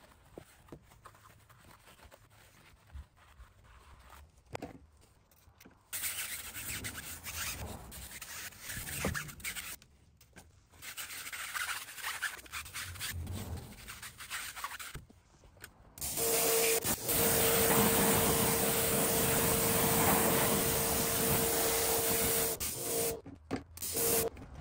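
Bristle wheel brush rubbing and scrubbing over a foamed alloy wheel and tire in two short spells. Then, about two-thirds of the way in, a loud steady water spray with a hum sets in for about seven seconds as the wheel is rinsed, and it cuts off near the end.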